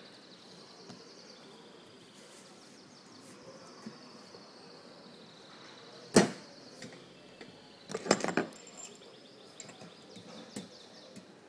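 Handling noise of a phone in a plastic case on a desk: one sharp knock about six seconds in, then a quick cluster of clicks and knocks around eight seconds and a few lighter ticks, over a faint steady hiss with a high whine.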